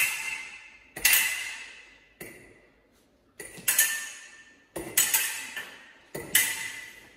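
Steel foil blades striking each other in a fencing lesson's parries and beats: a series of sharp metallic clashes, some in quick pairs, each ringing out for about a second.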